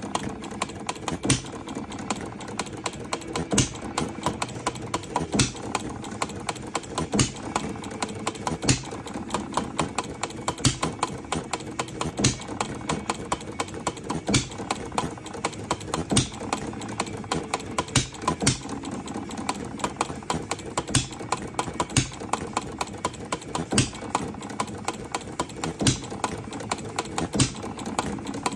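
Scale model Jacobson (Bullseye) single-cylinder hit-and-miss engine running: a fast, light clatter of valve gear, with a louder beat about every one and a half to two seconds as it fires, then coasts on its flywheels between firings.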